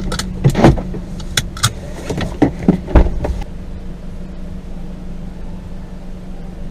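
Small car's engine idling steadily, with several sharp clicks and knocks in the first half.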